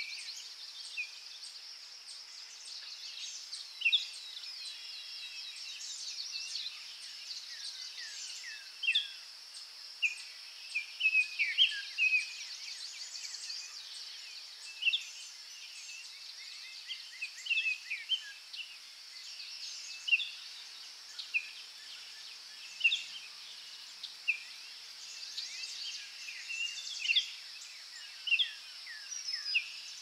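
Forest bird chorus: many birds chirping and trilling, with short calls and down-slurred whistles coming several times a second, over a steady high-pitched hiss.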